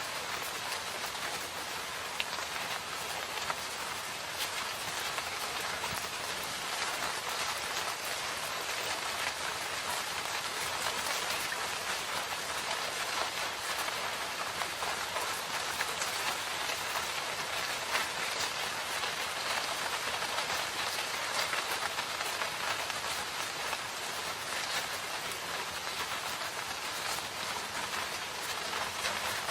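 Steady rain falling in a forest: a dense, even patter of drops, with now and then a louder single drop.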